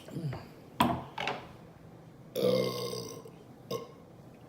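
A woman burping: short burps in the first second or so, then one long, low burp about two and a half seconds in.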